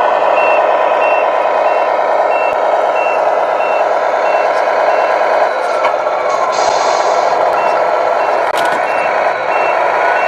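Tamiya MFC-01 sound unit in an RC Globe Liner truck playing a simulated diesel engine running, with a reversing beeper sounding about twice a second as the truck backs up. The beeping breaks off for a couple of seconds in the middle, where a short air hiss sounds, then resumes.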